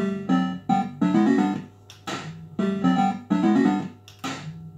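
Bell Fruit Cash Explosion fruit machine playing its electronic sound effects: a short looping jingle of beeping notes, cut by a brief hissing whoosh about every two seconds.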